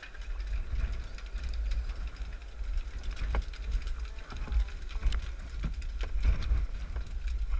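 Wind buffeting a GoPro camera's microphone in a gusty low rumble, with a few short sharp knocks or splashes from the kayak and paddles.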